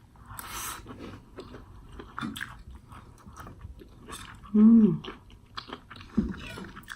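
Close-miked mouth sounds of a person chewing food: wet clicks and smacks, with a short hummed "mm" of enjoyment about four and a half seconds in.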